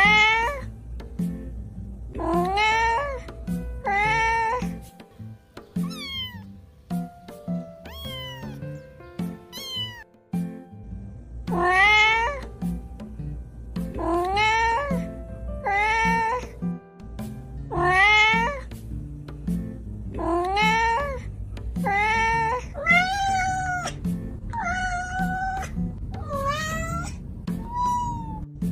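Domestic cat meows repeating every second or two over background music with a steady beat; the beat drops out for several seconds about five seconds in, then returns.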